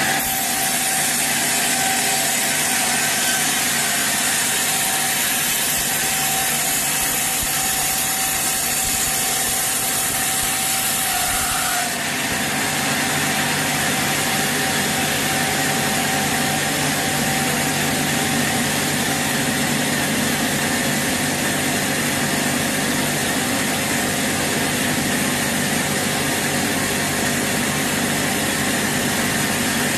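Sawmill saw running steadily through a teak log. About twelve seconds in, a steady tone drops out and the cutting sound changes slightly, then runs on unchanged.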